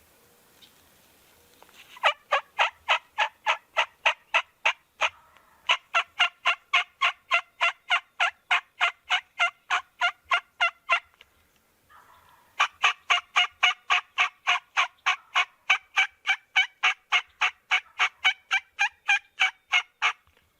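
Turkey yelping, loud and close: long runs of evenly spaced yelps at about four a second, in three series separated by short pauses about five seconds in and again about eleven seconds in.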